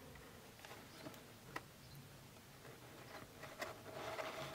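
Faint small clicks of metal tweezers against a clear plastic tub, then a soft rustle of a paper towel being pulled out with the tweezers, loudest near the end.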